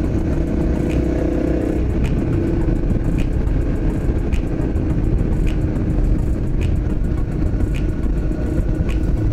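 Honda CRF250L single-cylinder engine running at a steady cruise, with heavy wind rumble on the microphone. A faint tick comes about once a second.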